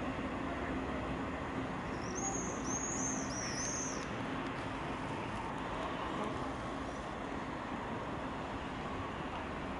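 Steady rumble of a freight train's tank wagons rolling away along the track. A bird gives a quick run of five or six high chirps about two seconds in.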